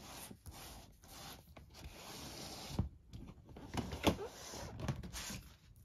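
A large, new, unfolded paper gaming map (Flip-Mat) rustling and crinkling as a hand presses and shifts it, with several sharp crackles, the loudest about four seconds in. The crinkle comes from the mat still being stiff from its factory folds.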